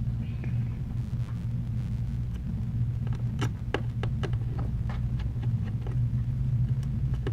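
Steady low hum with a scatter of light clicks and taps from small screws and tools being handled on the work surface.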